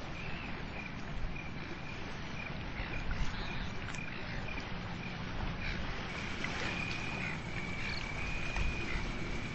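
Night ambience: an insect, likely a cricket, chirping in a thin high tone, in short bursts at first and then trilling without a break from about six seconds in, over a steady low rumble of background noise.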